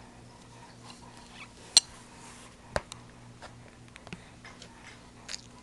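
Scattered sharp clicks and small taps over a faint steady hum, the loudest click about two seconds in.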